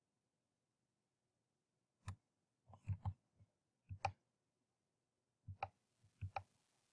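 Computer mouse clicking: near silence at first, then about eight short, sharp clicks spread over the rest, several of them in quick pairs like double-clicks.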